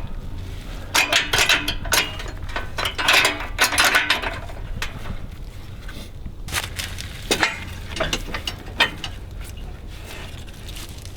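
Metal clanking and rattling in irregular clusters over a low steady hum.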